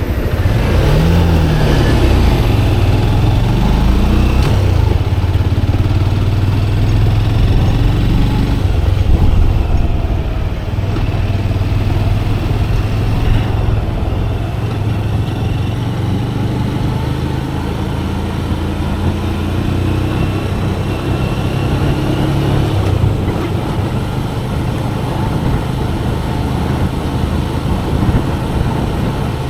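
Motorcycle engine running under way, with road and wind noise; the revs rise and fall a few times in the first few seconds, then hold fairly steady.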